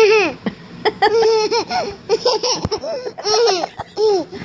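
Toddler laughing in a run of short, high-pitched giggles and squeals.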